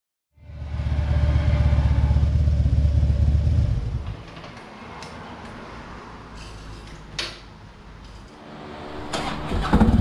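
2012 Harley-Davidson Street Glide's Twin Cam 103 V-twin engine running loudly for about three and a half seconds, then dropping to a faint sound. A sharp click comes about seven seconds in, and the engine grows louder again near the end.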